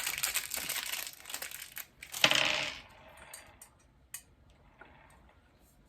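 Crinkling plastic packaging and clinking of small metal hardware from a clothing-rack kit, with one louder rattle about two seconds in, then a few light clicks.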